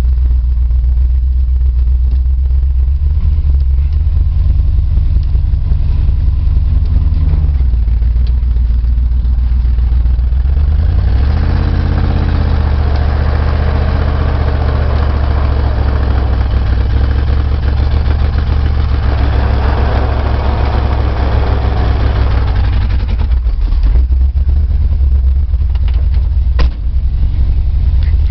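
Dodge vehicle's engine running with a low rumble. About eleven seconds in it revs up and holds the higher revs for roughly ten seconds, then drops back near the end.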